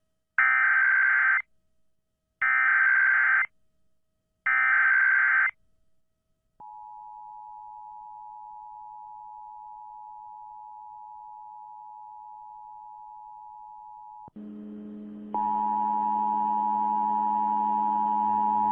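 Emergency Alert System tones: three one-second bursts of SAME digital header data, a second apart, then the steady two-tone EAS attention signal (853 and 960 Hz) starting about six and a half seconds in and holding. Near fourteen seconds a low hum joins it and the tone grows louder.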